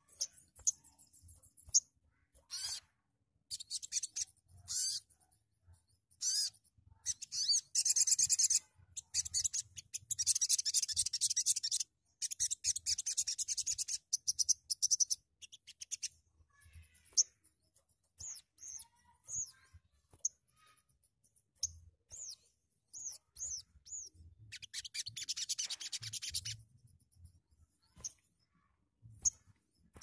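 Sunbird (sogon) calling: sharp high-pitched chirps and several bursts of fast, rattling trill, each lasting from under a second to about three seconds, with short silent gaps between them.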